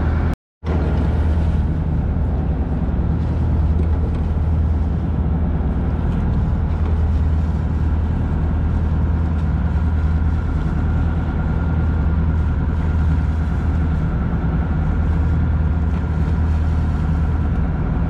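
Fishing boat's engine running with a steady low hum, cut off for a moment about half a second in.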